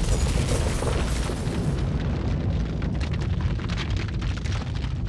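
Heavy rumble with rattling and clattering, the sound of a building shaking in an earthquake. About two seconds in the sound grows duller and the rattling turns into many quick knocks.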